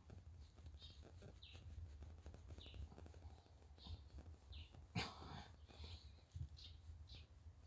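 Faint, repeated short chirps of a small bird, about one every half second to second, over a low steady rumble. About five seconds in comes one sharp burst, the loudest sound.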